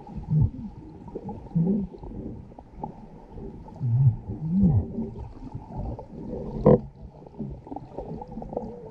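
Low, muffled moaning tones that arc up and down in pitch, several times over. A single sharp knock comes a little before seven seconds in.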